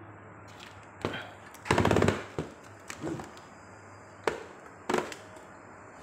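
Handling knocks and clacks from a portable LED floodlight's folding metal stand and lamp head as they are turned and folded: a handful of sharp knocks, with a short burst of rapid clicking about two seconds in.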